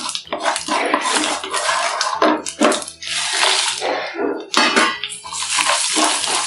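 Mustard and fenugreek seeds with asafoetida sizzling and spluttering in hot oil in a pan, in uneven bursts, with a spoon scraping and clinking against the pan as they are stirred.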